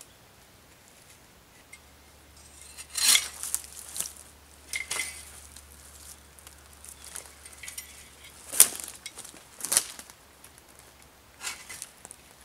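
Dry dead wooden poles and sticks knocking and cracking as they are picked up and handled among forest-floor debris: a series of sharp, separate clacks, the loudest about three and nine seconds in.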